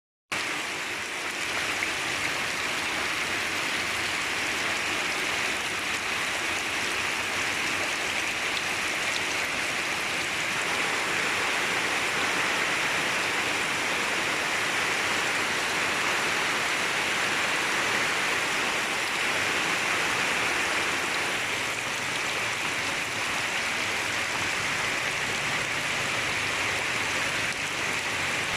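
Heavy rain falling steadily as an even, dense hiss, cutting in abruptly just after the start.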